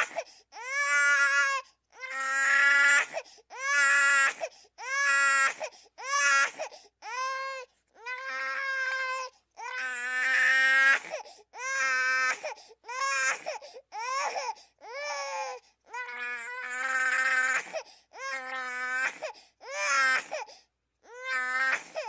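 Baby crying: a steady run of high-pitched wails, about one a second, each broken off by a short catch of breath.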